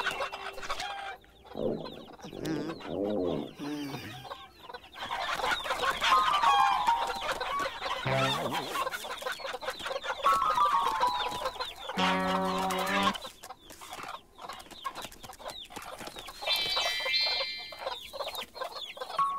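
Cartoon hens clucking and squawking as a flock, with several falling squawks and a deep drawn-out call a little past halfway.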